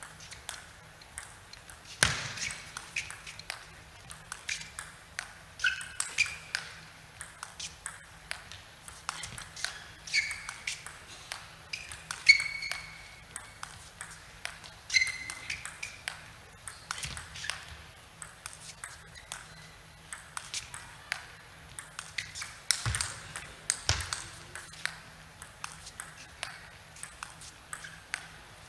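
Table tennis ball struck back and forth in a long defensive rally, with chopped returns: quick clicks off the rackets and bounces on the table, several a second, some with a short ringing ping.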